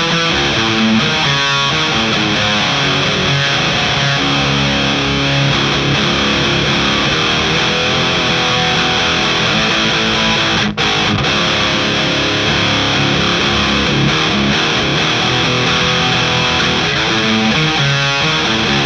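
High-gain electric guitar played through a DBE Swedish Chainsaw, a DIY HM-2-style distortion pedal: a thick, heavily distorted tone playing sustained chords and riffs. There is a momentary dropout about ten seconds in.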